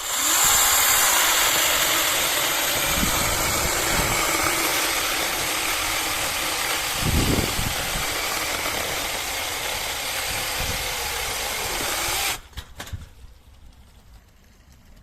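Angseen 6-inch battery mini chainsaw's brushless motor and chain running at speed: a steady high whine over a hiss, with a few low knocks around three, four and seven seconds in. It cuts off suddenly about twelve seconds in.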